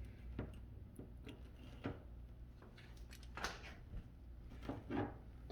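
Faint, scattered clicks and rustles of hands handling an electrical power cord, its plug and wires, over a low steady hum; the most distinct click comes about three and a half seconds in.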